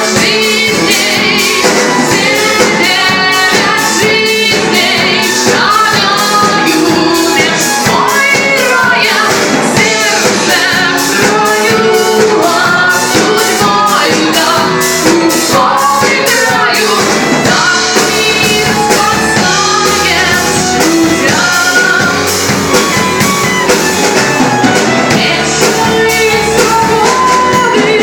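A rock band playing a song with a lead singer over a steady drum beat.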